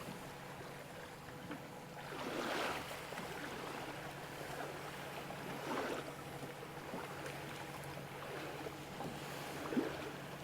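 Water lapping softly against a small boat's hull in a few gentle swells, over a faint steady electric hum.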